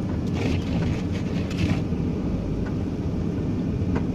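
Delivery van driving on a snowy road: steady engine and tyre rumble heard from inside the cab, with a few faint brief higher sounds around the first two seconds.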